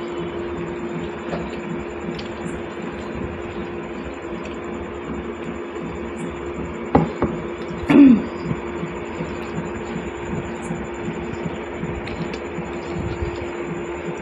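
Soft squishing and small clicks of watery rice and dal being mixed by hand and eaten, over a steady hum. A brief louder sound comes about seven seconds in and again about eight seconds in.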